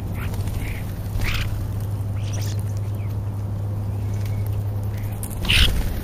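European starlings feeding in a crowded flock, giving several short harsh calls, the loudest near the end, over a steady low hum.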